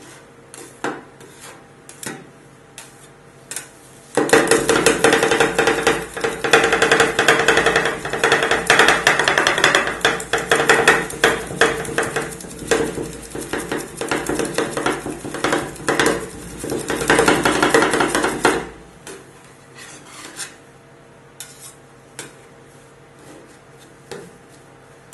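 Two steel spatula scrapers chopping and grinding rolled ice cream base on a frozen steel ice-pan, metal tapping and scraping on metal. A few separate taps come first. About four seconds in, it turns into fast, dense chopping that lasts about fifteen seconds, then drops back to occasional taps.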